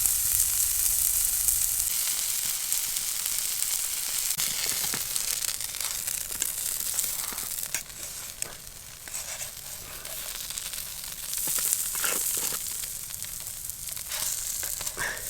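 Fish fingers sizzling as they fry in hot fat in a pan, with scattered small crackles. The sizzle is loudest at first, eases slowly, and swells again about two-thirds of the way through.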